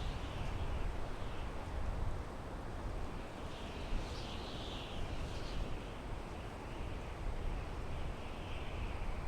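Wind blowing through pine trees: a steady hiss of the needles over a deep rumble, swelling in gusts around the middle and again near the end.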